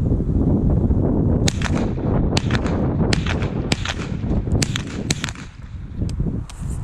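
A .22 rimfire rifle firing a rapid, irregular string of about a dozen shots, with a low rumble of wind on the microphone underneath.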